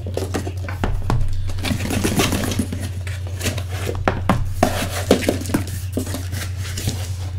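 Shrink-wrapped cardboard trading-card boxes being slid out of a cardboard shipping case and set down on a desk: a run of irregular knocks, taps and short scrapes. A steady low hum runs underneath.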